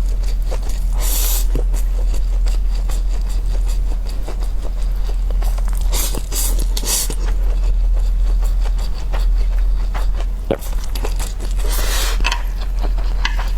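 Eating at a table: chopsticks scraping and clicking against a dish, with several short hissy bursts, over a steady low hum.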